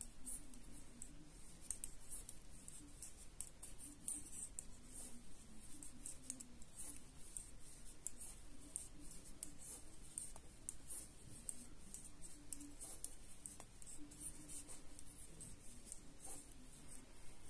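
Knitting needles clicking faintly and irregularly, with the soft rustle of yarn, while rows of stockinette are worked.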